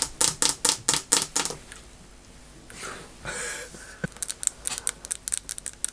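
Long acrylic nails tapped rapidly against teeth, making quick sharp clicks. They come in two runs, with a soft breathy pause around the middle.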